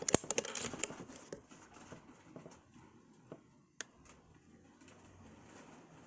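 A single sharp shot from a moderated PCP air rifle just after the start, followed by a quick run of small clicks and knocks, then a few scattered clicks.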